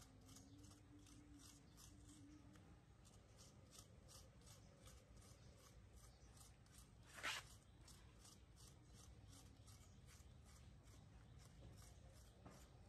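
Metal teaspoon scraping the flesh of a halved apple, faint repeated scrapes at about three a second, with one louder scrape about seven seconds in.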